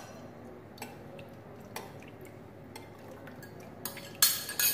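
Metal spoon scraping and tapping against a small porcelain bowl: a few faint clicks, then several louder clinks near the end.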